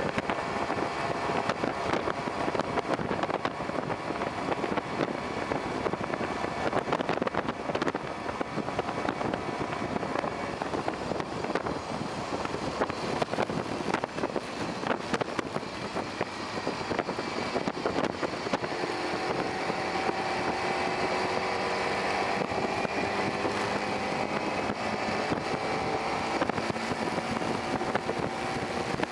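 Lightning electric car's motor whining at speed over wind and road noise, with no engine sound. From about two-thirds of the way through, the whine rises slowly and steadily in pitch as the car speeds up.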